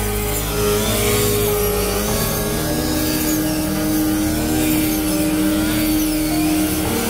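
Small four-stroke engine of a walk-behind paddy reaper running steadily.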